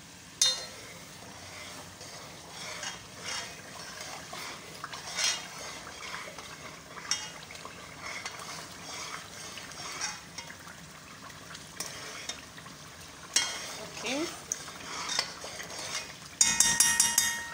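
Metal spoon stirring and scraping in a large aluminium pot of tomato paste and pepper sauce frying in palm oil, with a bubbling sizzle underneath and scattered clinks of the spoon against the pot. Near the end, a short run of loud, rapid metallic clatter with ringing.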